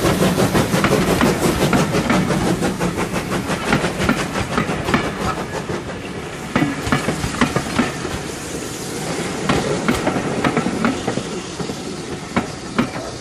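Railway passenger coaches rolling past at close range, their wheels clicking and clattering over the rail joints. The sound fades as the last coach goes by.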